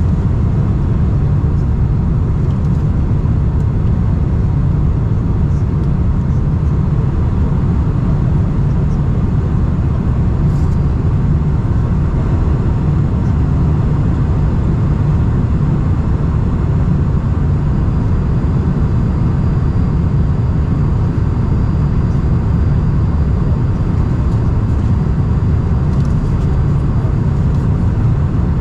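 Steady cabin noise inside a Boeing 747-400 in flight: the rush of air over the fuselage mixed with the drone of its four jet engines, heaviest in the low end and holding an even level.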